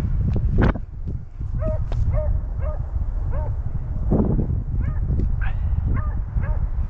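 Beagles baying on a rabbit's trail: short, repeated yelping cries, about two a second, over a steady low rumble.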